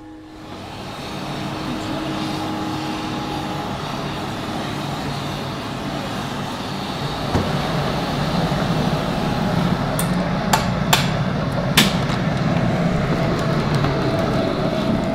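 Steady rushing noise of a glass studio's gas flame and furnace burning, getting louder about halfway through. Several sharp knocks of tools come near the end.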